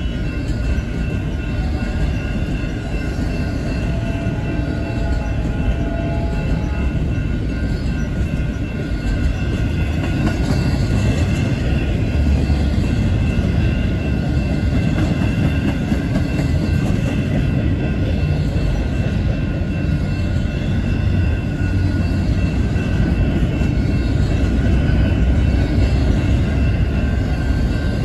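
Double-stack container train's loaded well cars rolling past: a loud, steady low rumble of steel wheels on the rails, with thin high ringing tones from the wheels running through it.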